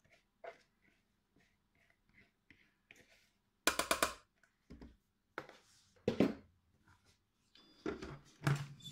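Silicone spatula scraping and knocking against a plastic bowl and the stainless-steel mixing bowl of a Monsieur Cuisine plus as chopped apples are tipped in. Light scattered ticks, then a quick run of knocks about four seconds in, and a few more single knocks later.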